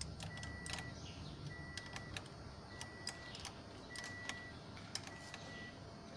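Car's warning chime beeping steadily with the ignition switched on, five even high beeps about a second and a quarter apart, with a few sharp clicks between them.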